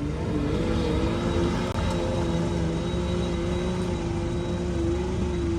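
An off-road 4x4's engine running steadily at an even pitch, with a low rumble under a held, slightly wavering hum.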